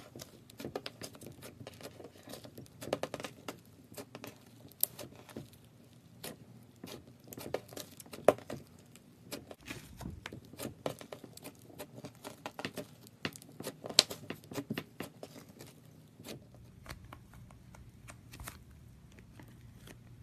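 Slime squeezed and kneaded by hand, giving a dense, irregular run of sharp crackles and pops as air pockets burst in it. The popping thins out to fainter squishing about three-quarters of the way in.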